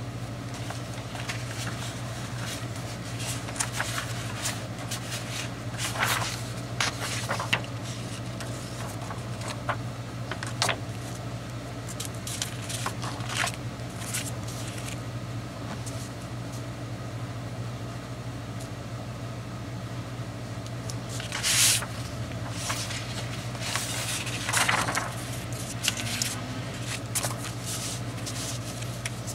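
Sheets of scrapbook paper and cardstock rustling and sliding on a cutting mat as the layout pieces are lifted and set down, in short scattered bursts, two of them louder about twenty-one and twenty-four seconds in. A steady low hum runs underneath.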